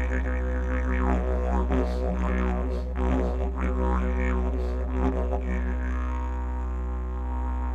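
Didgeridoo drone, a deep continuous tone with its pitch held steady, shaped by repeated vowel-like wah sweeps. The sweeps stop about six seconds in, leaving a plain steady drone.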